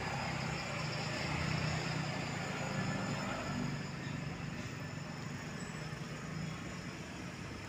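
Diesel engine of a UD Quester ready-mix concrete mixer truck running as the truck drives slowly past close by, a steady low drone that eases off a little about halfway through as it moves away.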